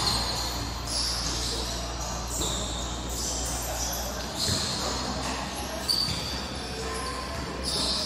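A futsal game on an indoor court: thuds of the ball being kicked and bouncing, a couple of them about four and a half and six seconds in, and many short, high squeaks of shoes on the court floor.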